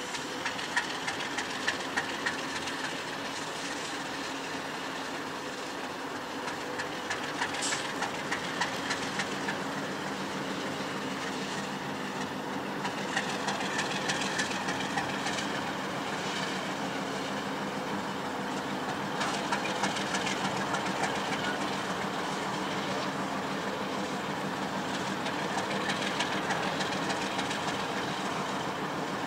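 Diesel locomotive 103 running light engine at slow speed: a steady engine drone, with the wheels clicking over rail joints in groups every few seconds.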